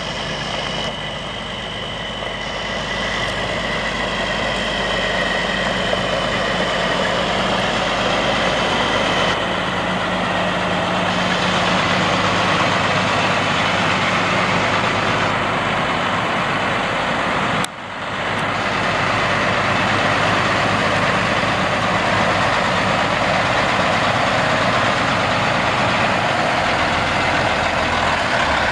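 Caterpillar C12 inline-six diesel of a Freightliner FLD120SD tri-axle dump truck running steadily as the truck drives on gravel. It grows louder over the first dozen seconds, and the sound breaks off sharply for a moment about two-thirds of the way through.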